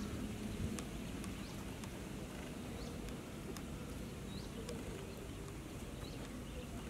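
A small bird repeating a short, high, rising chirp every second or so, over a low, steady background rumble, with a few faint clicks.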